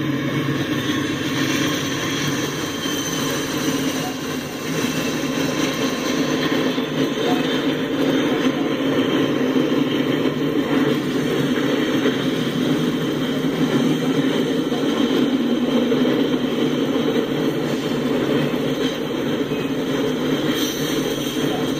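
Norfolk Southern diesel locomotives and double-stack intermodal container cars passing overhead on a steel girder bridge, giving a steady, continuous rumble of engines and wheels that grows a little louder about five seconds in.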